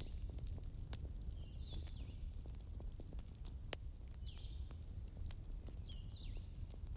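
Wood fire crackling in a fireplace: a low steady rumble with scattered small snaps and one louder pop a little past halfway. High, short chirps recur over the fire.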